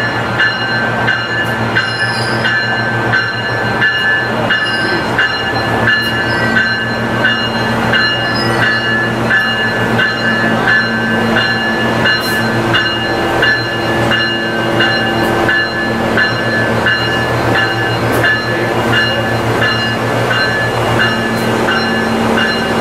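Nippon Sharyo diesel multiple unit pulling into the platform and slowing to a stop, its diesel engine running steadily under a regular ticking.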